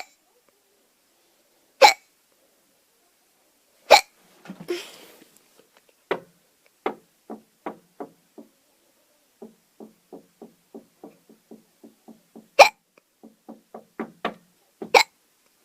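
A person hiccuping: loud, sharp single hiccups about two seconds apart, then a long run of quicker, fainter hiccup-like clicks at about three a second, with two more loud hiccups near the end.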